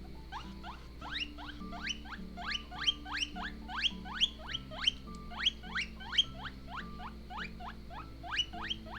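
Guinea pig wheeking: a rapid series of short, sharply rising squeaks, about two to three a second, in protest at being brushed. Faint background music runs underneath.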